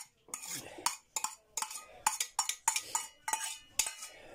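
Metal spoon scraping and clinking against an enamel plate as diced sausage is pushed off it into a plastic bowl: a run of short, irregular clicks and scrapes.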